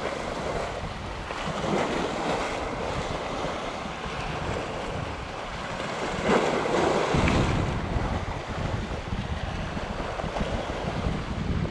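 Sea waves washing and breaking against the rocks of a breakwater, surging about two seconds in and again around six seconds in. From about seven seconds on, wind buffets the microphone with a low rumble.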